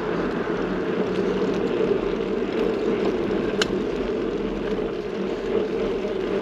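Steady noise of riding on a bike: wind and road rumble, with a single sharp click about three and a half seconds in.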